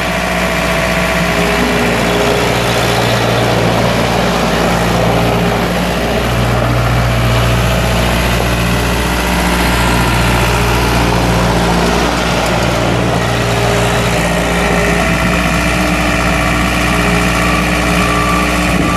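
Case 4-390 3.92-litre four-cylinder diesel engine of a Case 1845C skid steer running steadily, with a low hum that swells and drops every second or two.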